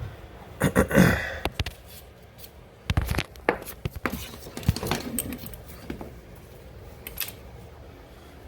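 Scattered clicks and knocks from hands working on a freshly reset toilet, the loudest clunk about a second in.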